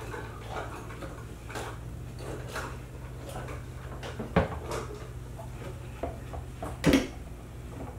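Kitchen handling sounds: a wall cupboard being rummaged, with jars and containers knocking and clinking against the shelf and counter. Two sharper knocks stand out, about four and a half and seven seconds in, over a steady low hum.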